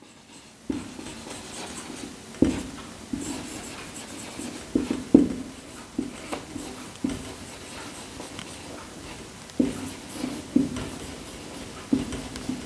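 Hand writing on a board, with irregular scratchy pen strokes and sharp taps, the loudest a little past the middle.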